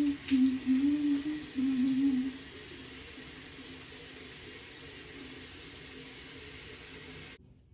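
Tap water running steadily into a bathroom sink during face rinsing, with a wavering hummed tune over it for the first two seconds or so. The water sound cuts off suddenly near the end.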